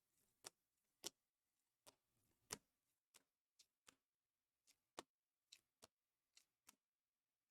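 Faint, irregular clicks and taps, about a dozen, of trading cards being handled and set down on a table.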